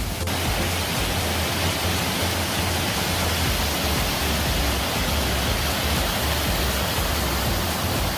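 Steady rush of water from a moorland clough waterfall and stream, with an uneven low rumble underneath.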